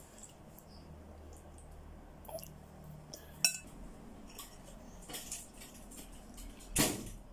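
A metal spoon clinking and scraping against a plate, with a few separate clinks, a sharp one about three and a half seconds in, and a louder scrape near the end.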